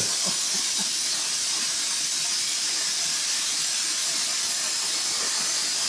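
Plasma cutter torch on an ArcDroid CNC robot cutting through sheet metal: a steady, high-pitched hiss of the air-plasma arc that runs without a break.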